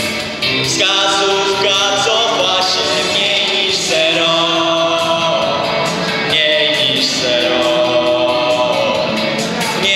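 A Polish rock song in 1980s style: singing in long held notes over a rock band accompaniment.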